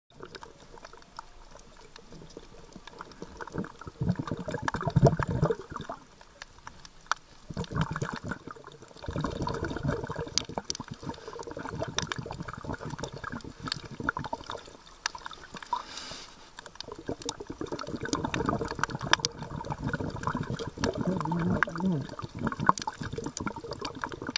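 Underwater water noise picked up by the camera, swelling and fading in several surges, with scattered sharp clicks.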